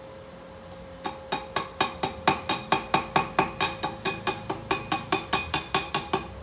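Steel struck about four times a second by a hammer, a rapid run of sharp ringing knocks starting about a second in, typical of a chipping hammer knocking slag off an arc weld.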